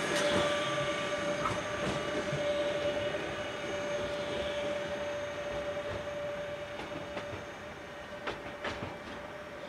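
Class 185 Bombardier TRAXX electric locomotive running light and drawing away, a steady whine over a rolling rumble that fades as it goes. A few sharp clicks come near the end.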